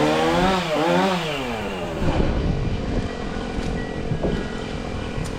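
Chainsaw revved twice in quick succession, its pitch rising and falling each time, followed by a rough, steady noise with no clear pitch.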